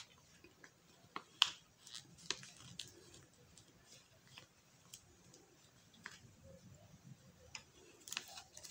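A steel spoon scooping powder out of a plastic bag into a bowl: scattered faint clicks and plastic crinkles, with a sharper click about a second and a half in and a few more near the end.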